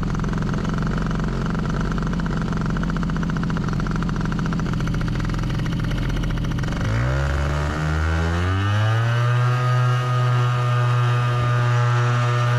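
Solo two-stroke paramotor engine running steadily at low throttle, then opened up about seven seconds in, its pitch climbing over a couple of seconds to a steady, higher, louder drone: throttle going up to power for the takeoff run.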